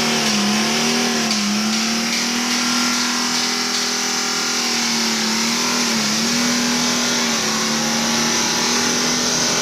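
Car engine running steadily at raised revs during a hydrogen carbon-cleaning treatment, its pitch wavering slightly a few times, with a steady hiss over it.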